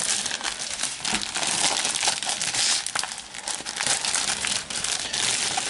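Plastic packaging crinkling and crackling continuously as a trading-card starter pack's contents are handled and pulled out.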